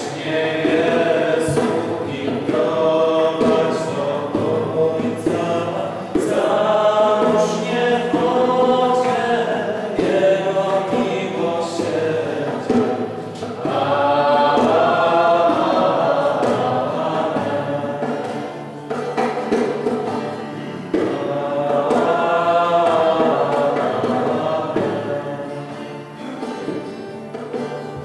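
A choir singing a religious song in long sung phrases, with short breaks between them.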